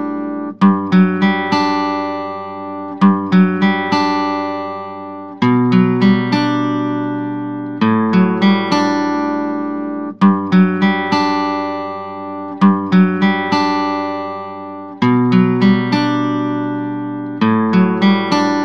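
Background music on acoustic guitar: a picked phrase of plucked notes that ring out and fade, starting over about every two and a half seconds.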